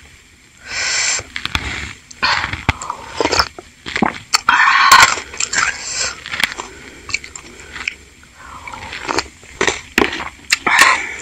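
Close-miked eating sounds: spoonfuls of spicy broth slurped from a wooden spoon and chewy bakso aci (tapioca-starch balls) chewed, with sharp clicks of the spoon against the ceramic bowl. The loudest slurp comes about halfway through.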